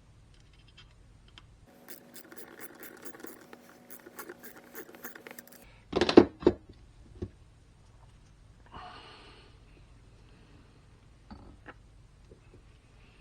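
Metal shifter parts and fasteners being handled on a bench: scraping and quick clicking, then a short clatter of loud knocks about six seconds in, with a few lighter clicks afterwards.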